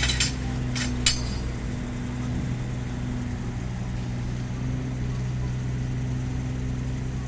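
An engine running steadily with a low hum. A few sharp metallic clinks come in the first second or so.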